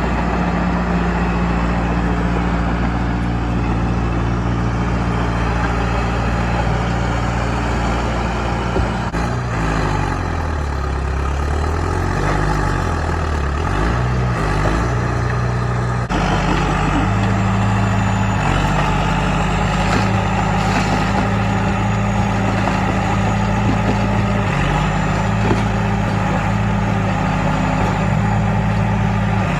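Diesel engine of a John Deere 455E crawler loader running, its engine speed sagging and coming back up about halfway through, then running steadily again.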